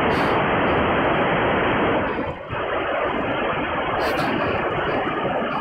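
Shortwave receiver's speaker giving out a steady rush of static while tuned to the 27 MHz CB band, briefly dipping a little over two seconds in.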